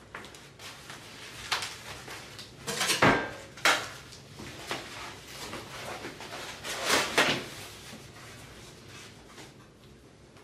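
Foam packaging wrap rustling and crinkling as parts are unwrapped on a countertop, in irregular handling bursts. About three seconds in comes the loudest moment, a dull thump with a sharp click right after, and another rustling burst follows around seven seconds.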